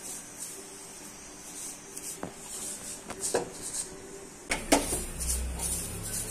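A silicone spatula stirring and scraping vermicelli as it fries in ghee in a nonstick pan, with a few sharp knocks against the pan about two, three and four and a half seconds in. The last knocks are the loudest.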